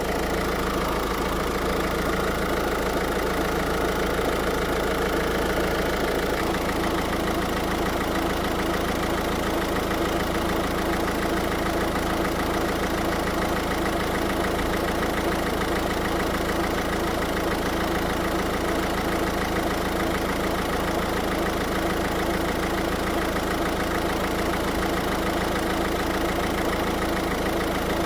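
Car engine idling steadily while the air conditioning is being recharged with refrigerant. A higher hum in the sound drops out about six seconds in.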